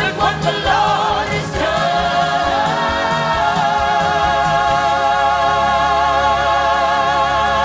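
Gospel song with group singing; after brief moving phrases, the voices settle about a second and a half in on one long held note with vibrato, like a song's final chord.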